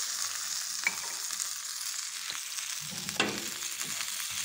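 Carrot, radish and green chilli strips sizzling steadily in mustard oil in a nonstick frying pan, stirred with a wooden spatula that clicks and scrapes against the pan, with one louder knock about three seconds in.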